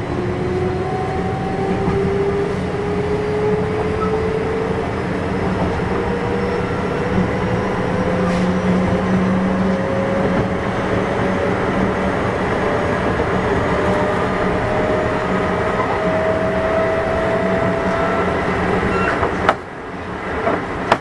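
Kintetsu 6200 series electric train running, heard from inside the car: a motor whine rises steadily in pitch as the train gathers speed, over a steady rumble of wheels on rail. Near the end comes a sharp click, and the sound drops quieter.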